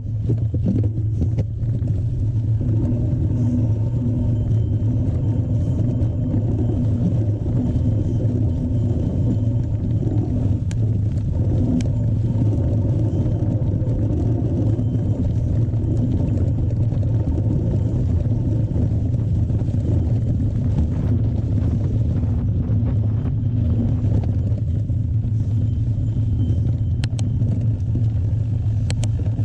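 Steady low rumble with scattered small clicks and rattles: wind and trail noise picked up while riding a mountain bike.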